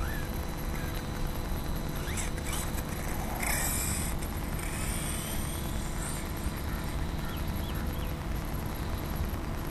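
Electric brushless motor of a 1/8-scale VRX-1 RC truggy whining as it accelerates over asphalt: a few short high-pitched whines rising in pitch, with a brief louder burst of tyre and drivetrain noise about three and a half seconds in, over a steady low rumble.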